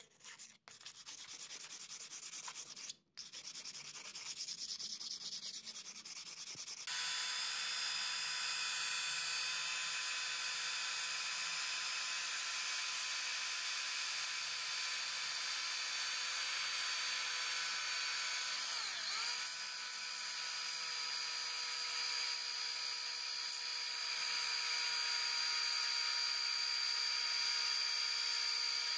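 A hand wire brush scrubs the rusted steel blade of a small masonry trowel with a rough scratching. About seven seconds in, a rotary tool with a small wire wheel brush starts and runs steadily against the blade with a whine, dipping briefly in pitch once about two thirds of the way through.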